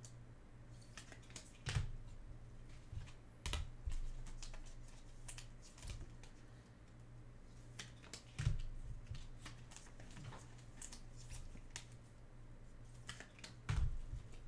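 Scattered, irregular clicks and taps from hands working at a desk, with a few louder knocks, over a low steady hum.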